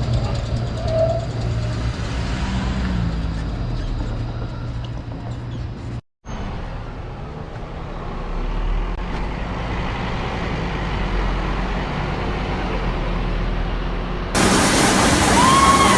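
Low steady rumble of a rail vehicle running, broken by a short gap about six seconds in. Near the end a much louder rush of noise starts suddenly, with a rising squeal at the very end.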